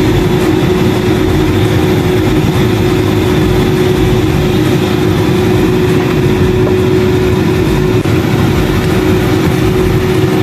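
Kitchen range hood fan running: a loud, steady rushing drone with a constant hum, unchanged throughout.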